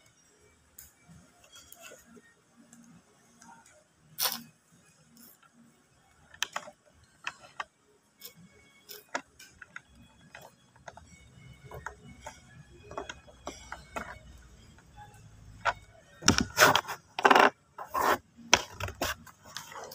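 A person chugging from a plastic drink bottle without stopping: gulping and swallowing, with scattered small clicks and crackles as the bottle is handled. A run of louder sounds comes near the end.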